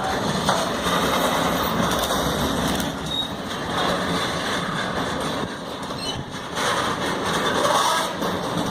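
Freight train hauled by a VR Sr1 electric locomotive pulling away: a steady rumble and clatter of wheels on the rails that grows a little louder near the end.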